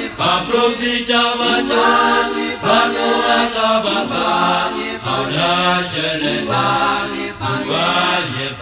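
Male gospel choir singing a Sesotho hymn in several-part harmony, with sustained chords that change every second or so.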